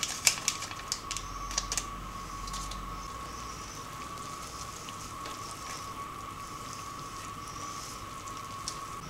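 A wire hand whisk mixing flour into pumpkin cake batter in a bowl: light tapping and scraping, with a few sharper taps in the first two seconds, over a faint steady whine.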